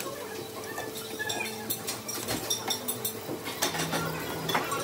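Metal tongs clinking and scraping against a foil-lined grill pan as meat is turned, with scattered clinks of dishes and cutlery over a steady low hum.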